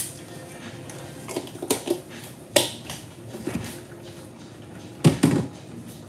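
Kitchen clatter: a few sharp knocks and clicks of things being handled on the counter and stove, the loudest about two and a half and five seconds in, over a low steady background.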